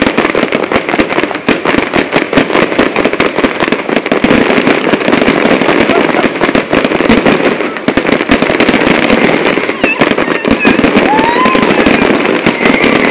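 Fireworks display in full barrage: a dense, rapid run of crackling bangs and bursts, with a few short rising whistles after about ten seconds.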